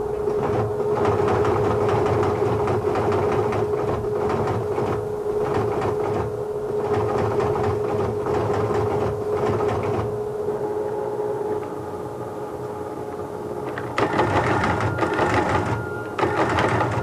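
A TTY (teletypewriter for the deaf) printing an incoming typed reply: a rapid mechanical clatter over a steady hum. It grows louder for the last few seconds, with a high steady tone.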